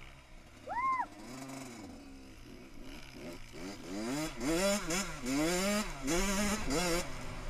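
Dirt bike engine revving up and down repeatedly, the pitch rising and falling about every half second, louder in the second half.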